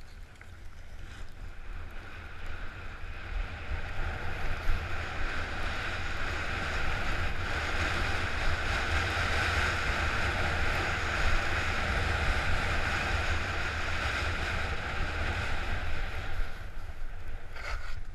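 Wind buffeting the action camera's microphone and skis hissing over the snow during a downhill run. The noise builds over the first few seconds and dies away near the end as the skier slows to a stop.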